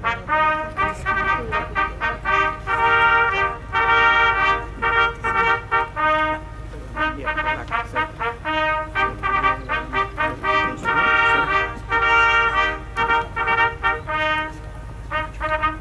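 Military brass band playing, with quick runs of short repeated notes broken by longer held chords.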